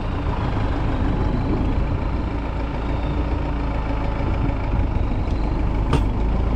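Tractor diesel engine running steadily, with one sharp click about six seconds in.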